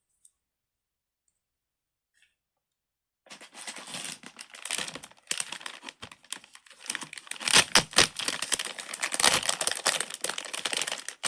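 Crinkling and crackling of plastic packaging handled by hand, starting about three seconds in after near silence and going on in uneven rustling bursts.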